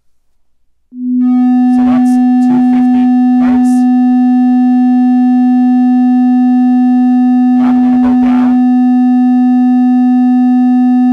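A steady 250 Hz sine test tone from a function generator, played loud through a Harman Kardon Onyx Studio Bluetooth speaker. It comes in about a second in and holds one pitch, with a buzzy edge of overtones because the heavy bass overloads the microphone.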